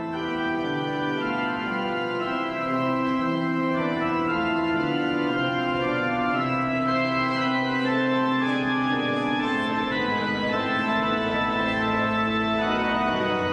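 Background music of slow, sustained organ chords, the notes held long and changing gradually.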